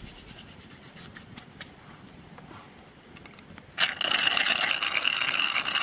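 Dried mint crumbled by hand onto raw ground beef, faint light crackling and rubbing. About four seconds in, a small hand-cranked metal spice grinder starts turning, a loud steady grinding whir.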